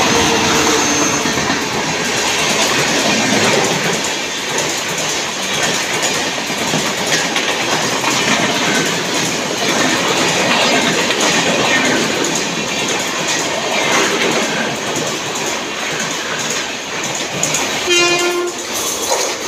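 Express passenger coaches rushing past at speed: a steady rush and rattle of wheels running over the rails. Near the end comes one short horn blast from an approaching suburban EMU.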